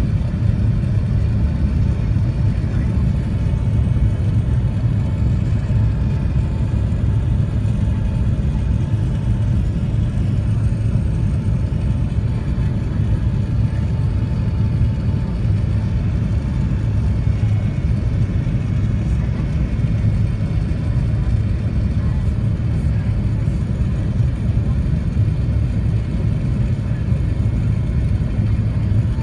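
Airbus A380 engine and airflow noise heard inside the upper-deck cabin in flight: a steady low rumble with a faint steady hum above it.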